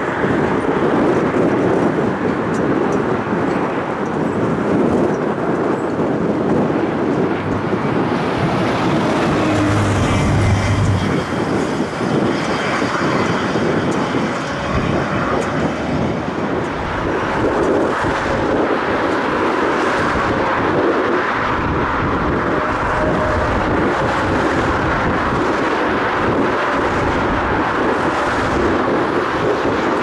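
Strong gusty wind buffeting the microphone, mixed with the engine noise of a jet airliner. A higher whine swells in about eight seconds in and fades again about eight seconds later.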